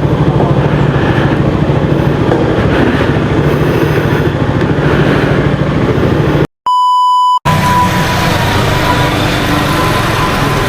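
Steady engine and traffic rumble that cuts out abruptly about two-thirds of the way through, replaced by a single steady high-pitched beep lasting just under a second, like a dubbed-in censor bleep; then the rumble resumes.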